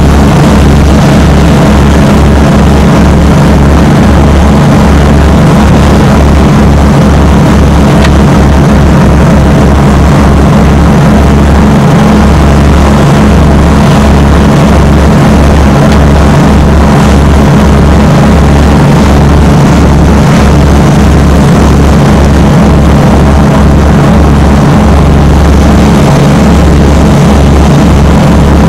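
Engines of a Fairmile motor launch running steadily under way at sea: a loud, constant drone with a choppy low rumble from wind buffeting the microphone.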